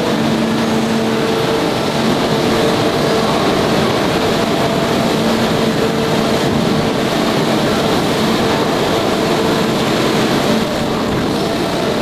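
Heavy forging machinery working a hot steel ring: a loud, steady mechanical noise with a faint hum running through it, without distinct blows.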